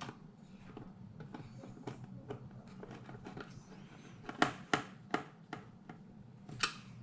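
Faint scuffing and light taps, then a handful of sharp clicks from about four and a half seconds in, the loudest near the end: small screws and a screwdriver being handled as the computer's small screws are put back in.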